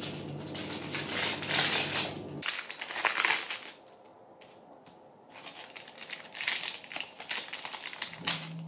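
Baking paper rustling and crinkling under hands handling caramel decorations on skewers: two spells of crackly rustling with a short pause about four seconds in.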